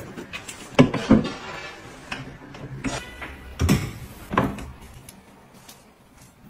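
Pull-down wardrobe lift rail being lowered and pushed back up, its mechanism giving a string of separate clicks and knocks.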